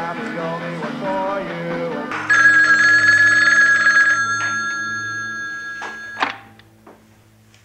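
Music for the first two seconds, then a wall-mounted telephone rings once: one long ring that fades over about four seconds and is cut off by a sharp click as the handset is lifted.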